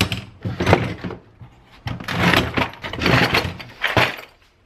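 A plastic rolling toolbox being opened and searched: its latches and lid knock, then the tray and the tools and small parts in it clatter in several separate bursts as hands rummage through them.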